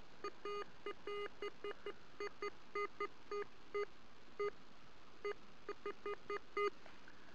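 Metal detector giving a string of short beeps at an uneven pace as its search coil sweeps back and forth over a dug hole: the signal of a buried metal target still in the ground. The beeps stop shortly before the end.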